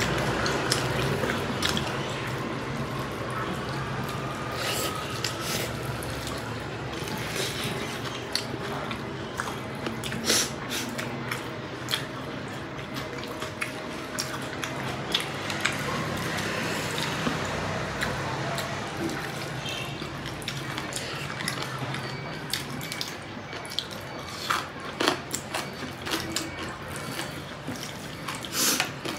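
Close-up eating sounds of rice and pork curry eaten by hand from metal plates: wet chewing and mouth clicks, with squishes and light taps as fingers mix the food on the plates.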